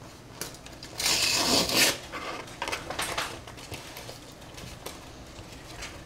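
Paper envelope torn open by hand: a rough rip lasting about a second, starting about a second in, followed by several short, softer rustles of paper and a stiff card folder being handled.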